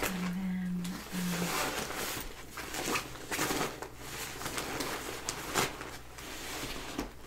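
Hands rummaging inside a fabric backpack: rustling and crinkling of the packed items with short knocks and clicks as things are pushed aside. A brief two-part hum in a woman's voice near the start.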